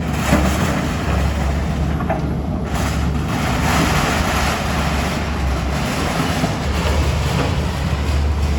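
An engine running steadily with a low rumble under a constant rush of noise.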